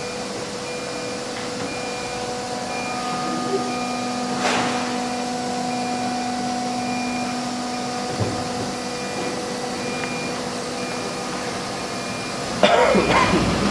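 CNC router machine running with a steady mechanical hum and several held tones, over a faint high beep repeating steadily. About eight seconds in a low tone stops with a knock, and near the end there is a sudden, louder burst of noise.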